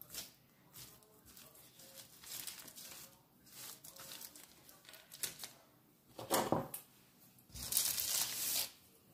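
Clear plastic sheet crinkling and rustling under hands rolling dough into a log, in short scattered rustles, with two louder crackling stretches in the last few seconds.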